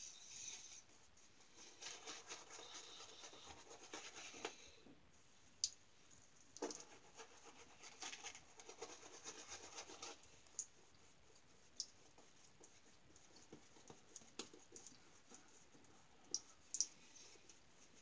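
Badger shaving brush swirling lather, faint and scratchy, in two stretches of a few seconds each, with a few light clicks between them.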